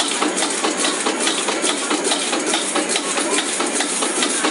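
Noodles frying in a wok over a commercial wok burner as the wok, on a mechanical arm, tosses them: a steady, dense sizzle with a continual run of small clicks and rattles.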